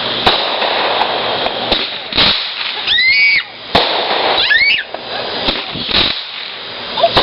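Fireworks going off: a continuous dense crackling, broken by several sharp bangs.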